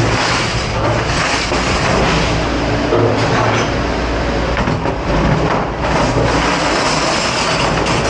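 Commercial dish pit noise: a pre-rinse sprayer hissing onto silverware in a dish rack, then metal cutlery and racks clattering as they are handled, over a steady loud rushing rumble.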